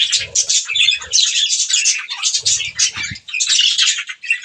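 Budgerigars chattering: a dense, quick stream of high chirps and warbles with hardly a pause.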